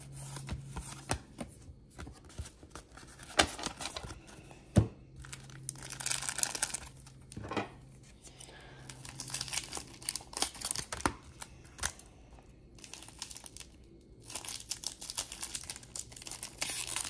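Paper wrapper of a basketball card wax pack being torn open and crinkled, with irregular rustling and sharp clicks of the cards being handled.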